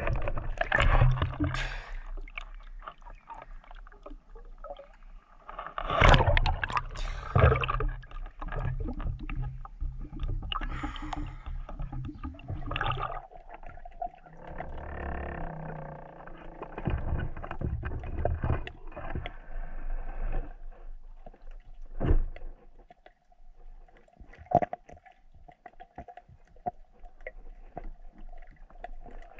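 Muffled underwater noise picked up by a diver's camera while swimming with a speargun: irregular rushes of water movement with scattered clicks and knocks, and a faint steady hum in the second half.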